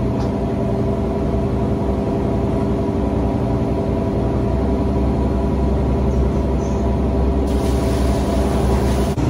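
Steady low machinery hum aboard a motor yacht, with several held tones over a rumble. For the last second or two a brighter hiss joins it.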